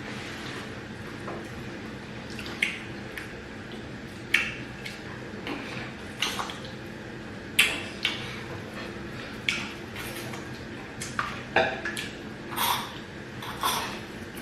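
Close-up mukbang eating sounds: wet, squelchy mouthfuls of fufu and peanut soup, with short clinks of dishes and cutlery coming irregularly, about a dozen times, over a steady low hum.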